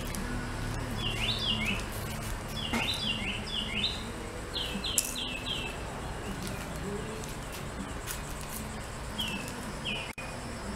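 Birds chirping in quick runs of three or four falling notes. Under them is the steady low hum of a new Goodman 2.5-ton heat pump condensing unit running.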